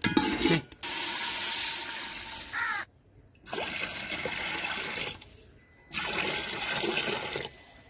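Water splashing as it is poured from a glass into an aluminium cooking pot over rice and cumin seeds, in three spells of one to two seconds with short breaks between.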